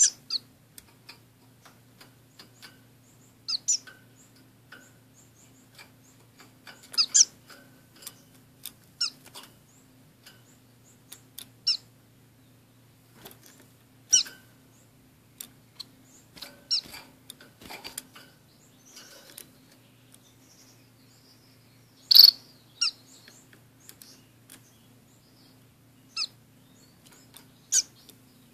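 Small caged estrildid finches, orange-cheeked waxbills and a society finch, giving short, high-pitched chirps scattered every second or so, some in quick pairs, the loudest about two-thirds of the way through.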